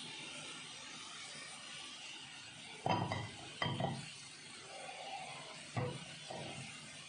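Steady hiss from a pan of olive oil heating on a gas stove, with a few short knocks and clatters of the pan and kitchen utensils about halfway through and near the end.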